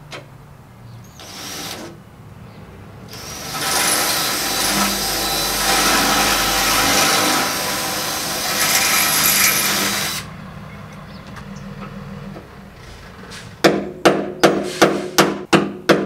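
Ryobi cordless drill boring into a spot weld in the steel floor pan of a 1969 VW Beetle for several seconds, drilling it out to free a broken tab. Near the end comes a quick run of sharp hammer blows, about three a second, on a chisel driving the tab loose.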